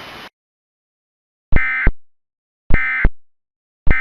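Emergency Alert System end-of-message data bursts: three short, identical bursts of digital data noise about a second apart, the SAME 'NNNN' code that closes an EAS alert. A faint hiss cuts off just before them.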